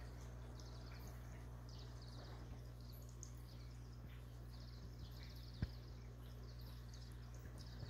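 Faint steady low hum, with faint high chirps now and then and one sharp click about two-thirds of the way through.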